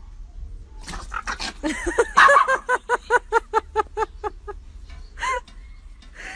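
A dog yapping in a fast run of short, high-pitched yaps, about five a second, during a play-fight with another dog. The yaps start about a second in, and one last yap comes near the end.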